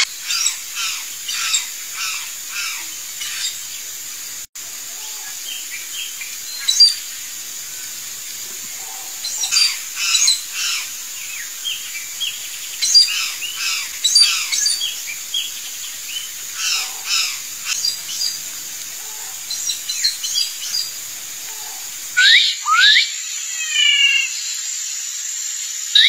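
Birds calling in short groups of quick, high chirps every few seconds. Near the end come louder calls with sliding notes and a quick run of repeated notes.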